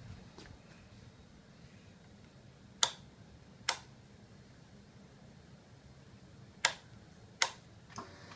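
Sharp mechanical clicks from handling a motorcycle's ignition key and controls while the dash is switched on before a start. Two pairs of clicks, the pairs about three seconds apart, then a fainter fifth click near the end.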